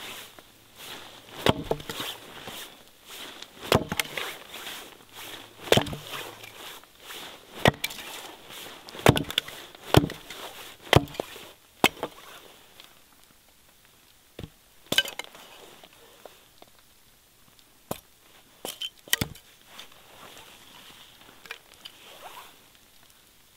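Hatchet chopping wood, splitting a short round into kindling on a log: sharp separate chops about every second or two, thinning out to fewer, lighter strikes in the second half.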